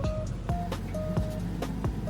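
Background music: a simple melody of held notes over a steady, soft kick-drum beat.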